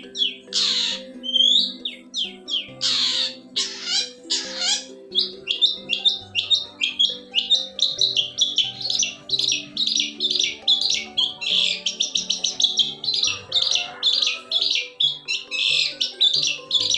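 Long-tailed shrike (pentet) in full song: loud, harsh sweeping screeches in the first few seconds, then a fast run of short, high chattering notes, about four or five a second. Soft background music underneath.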